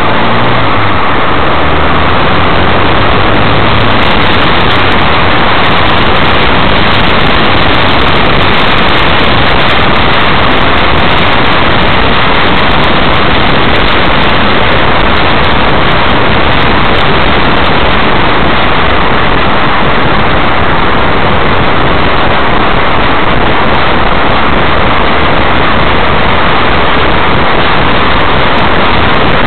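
Loud, steady rush of wind and road noise on a car-body-mounted camera's microphone while the car drives, overloading the microphone. A low engine hum under it fades out in the first few seconds.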